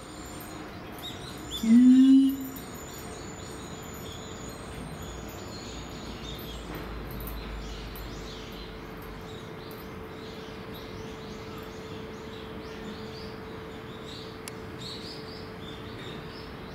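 A siamang gives one loud, short whooping call that rises and falls, about two seconds in, part of the pair's calling that is thought to claim territory. After it there is only a low background with a faint steady hum and faint high chirps.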